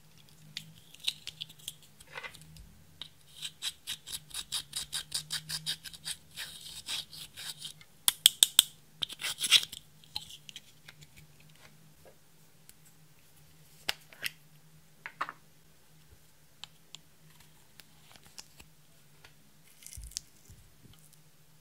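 Pressed eyeshadow being scraped and crumbled out of its plastic compact with a pointed tool: a run of quick scratching strokes, several a second, then a few loud sharp clicks about halfway through and scattered light taps afterwards.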